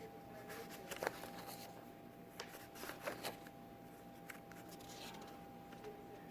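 Pages of a bound zoning book being leafed through: quiet paper rustles and small scattered clicks over a steady faint hum.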